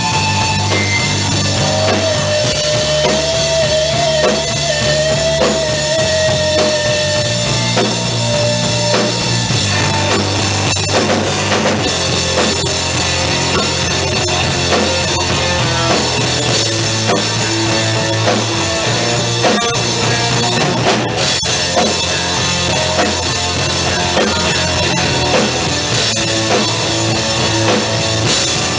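Rock band playing live with a drum kit, electric guitars and keyboard. About two seconds in, a high note is held with a waver for some five seconds.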